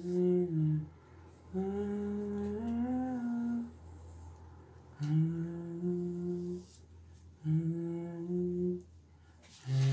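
A man humming a slow tune in held notes, in phrases of a second or two with short pauses between, some notes gliding up or down.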